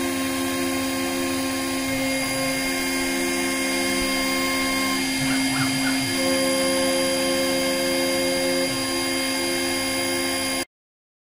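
6040E CNC milling machine's spindle running and its cutter milling a metal plate: a steady whine made of several constant tones over an even hiss. It cuts off abruptly near the end.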